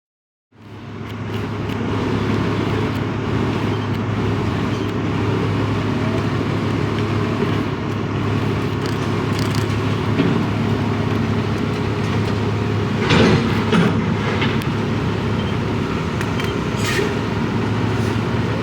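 Heavy diesel vehicle running steadily with a low engine hum. The sound cuts in about half a second in, with a brief louder rattle about two-thirds of the way through.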